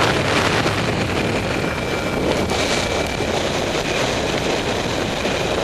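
Rushing wind noise on the microphone of a paraglider pilot in flight: a steady, loud hiss of airflow.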